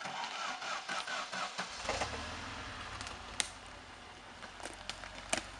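A UAZ off-road SUV's engine starting and then running at a low, steady idle from a little under two seconds in, with a few sharp clicks over it.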